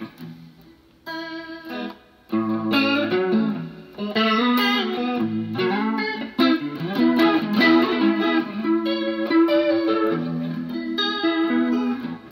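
Electric guitar played through a Danelectro Money Laundry rotary speaker emulator pedal, single notes and chords with a wavering rotating-speaker swirl. Near the start it pauses, with one short chord about a second in, then the playing picks up and runs on in phrases.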